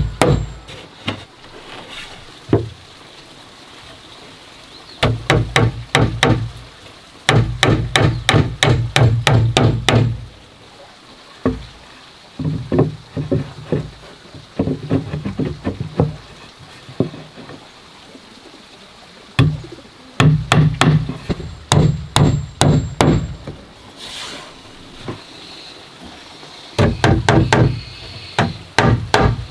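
Hammer driving nails into weathered wooden roof boards, in bursts of quick strikes several a second with short pauses between, the boards resonating with a deep knock.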